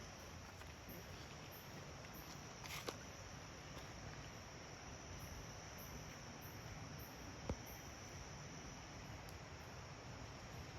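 Faint insect chorus: a continuous high trill with a higher, pulsing chirp repeating about twice a second. Two soft clicks come through, about three and seven and a half seconds in.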